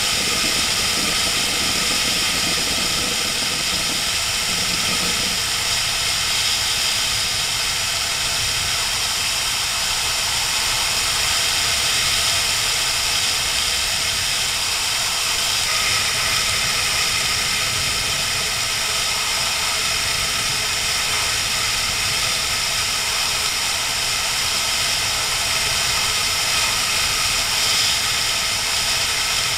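Inline-four sportbike running at steady road speed, its engine under heavy rushing wind noise, a steady loud hiss.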